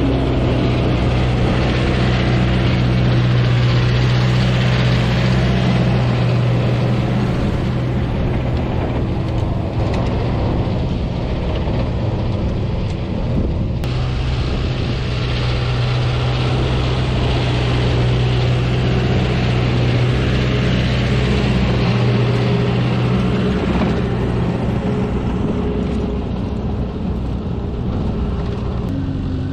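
Tractor diesel engine running steadily under load close by, pulling a seed drill combination with a front packer roller, with the rattle of the working implements; its note changes a few seconds before the end.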